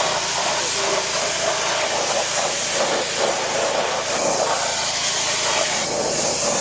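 Gas-engine pressure washer running while its wand sprays a steady high-pressure jet of water, a constant hiss over the engine's drone.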